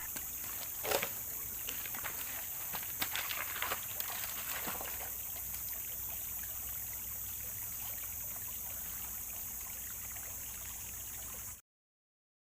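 Flowing river water with a steady hiss, with a few sharp clicks and knocks in the first five seconds; it cuts off abruptly near the end.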